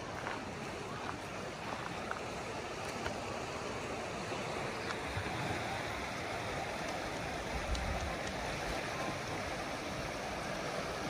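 Rushing water of a mountain river or stream: a steady, even hiss, with a brief low rumble a little past the middle.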